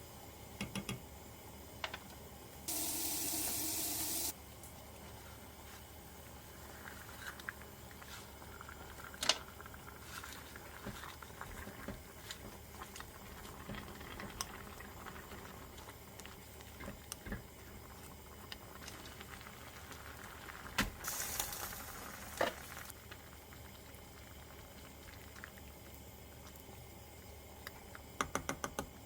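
Kitchen tap running briefly twice, a steady rush of water about three seconds in and again past the twenty-second mark, between scattered clicks and knocks of utensils and dishes.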